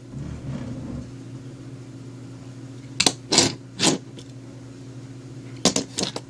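Small diecast metal toy pickup truck handled and set down on a tabletop: three sharp clicks about three seconds in, then a quick cluster of clicks near the end, over a steady low hum.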